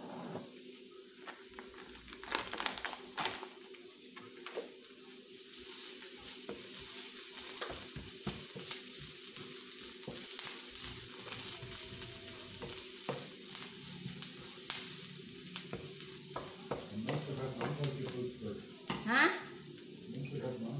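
Shredded cabbage sizzling in a hot frying pan as it is stirred with a wooden spatula, which scrapes and taps the pan now and then. A steady low hum runs underneath, and a short sound rising in pitch stands out near the end.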